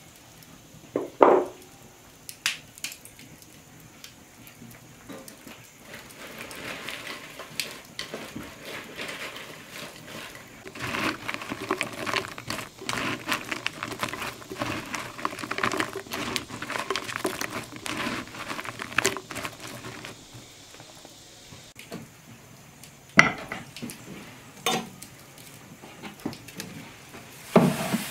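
Hands tossing dry bread cubes in a ceramic bowl to mix stuffing: a dense, crunchy rustle with small clicks, running for about a quarter of a minute. A few sharp knocks of kitchenware come before and after it.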